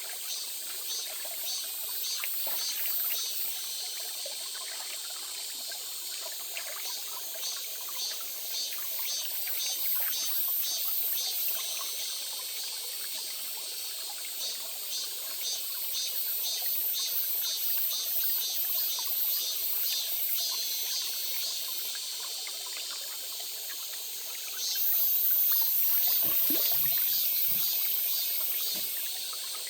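A small stream trickling and splashing steadily. Over it runs a high, rhythmic chirping, and about 25 seconds in a louder, high-pitched buzz starts and carries on until just before the end.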